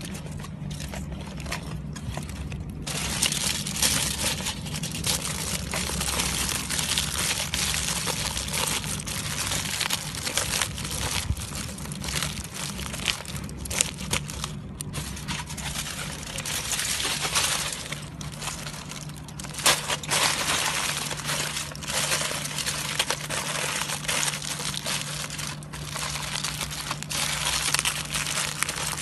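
Aluminium foil crinkling and crumpling as hands fold and press it into a tight parcel, in a dense run of crackles.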